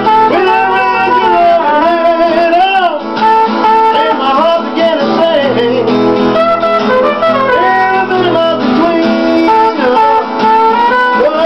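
Trumpet playing a sliding, bending melody over a strummed acoustic guitar.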